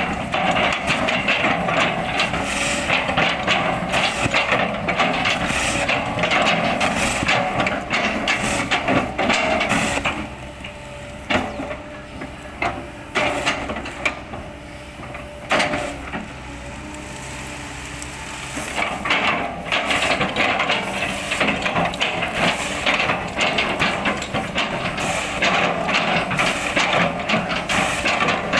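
Kobelco excavator chipping an oil palm trunk: the engine runs under load while the bucket chops the trunk with many cracking, knocking impacts of wood. Through a quieter stretch in the middle only a few sharp knocks come, then the dense chopping picks up again.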